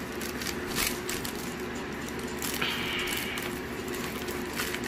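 Plastic mailer bag rustling and crinkling as it is handled, with a few sharp crackles, one about a second in and another near the end.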